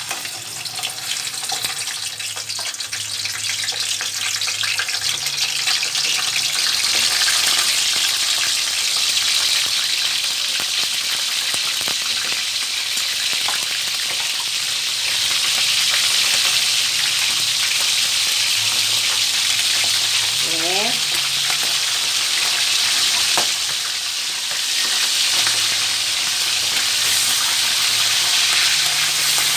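Yellowfin tuna pieces frying in hot cooking oil in a wok: a steady sizzling hiss that builds over the first few seconds after the fish goes in.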